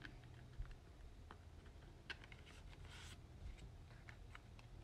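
Faint rustling and small clicks of a cardboard and paper documentation envelope being handled and opened, with a longer rustle about three seconds in.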